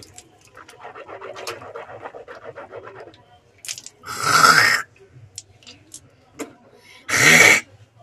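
A woman rinsing her mouth with water, a rapid bubbling rhythm lasting a couple of seconds. Then two loud, harsh throat hawks with spitting, about four seconds in and again about seven seconds in.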